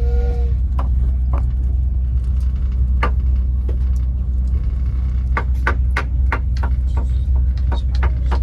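Moving passenger train heard from on board: a steady low rumble with irregular clicks and knocks from the wheels and the car.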